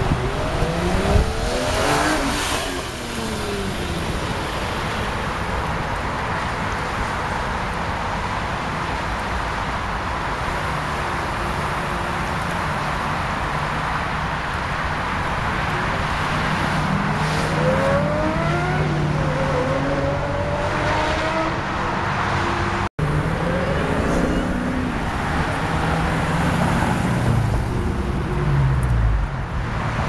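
Performance cars' engines and exhausts revving and accelerating away, the pitch climbing through several gear changes. After a cut, a Dodge Challenger's engine gives a low, steady rumble as it pulls out.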